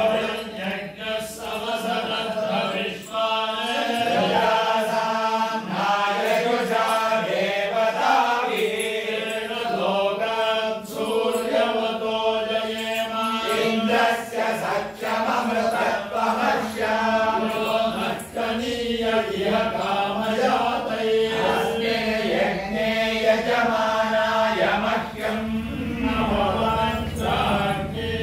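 Vedic chanting (Veda ghosha): voices reciting Sanskrit verses in a steady, sing-song recitation that runs on without a break.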